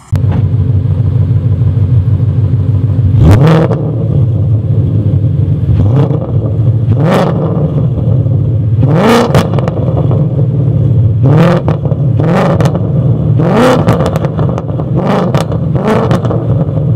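2013 Mustang GT's 5.0 Coyote V8 idling through Pypes long-tube headers, a high-flow catted X-pipe, resonator delete and Magnaflow Street Series axle-back, revved in a series of about nine sharp throttle blips, each rising quickly and dropping back to idle.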